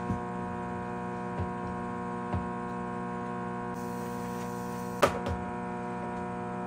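A steady electrical hum made of many tones, with a few light knocks of a wooden spoon against a plastic bowl and a sharper plastic clack about five seconds in as the bowls are handled.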